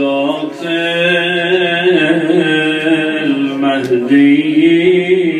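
A man's voice chanting an Arabic invocation in long, drawn-out melodic notes, with a short break about four seconds in before the next held note.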